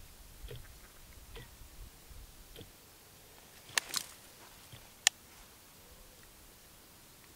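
Quiet marsh with a few faint, short duck quacks in the first three seconds, then two sharp clicks about four seconds in and a single louder, very sharp click about five seconds in.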